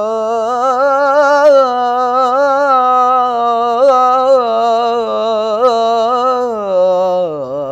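A young male chanter sings an Egyptian Islamic ibtihal solo, drawing out one long melisma on a held vowel with quick wavering ornaments. Near the end the line steps down to a lower pitch.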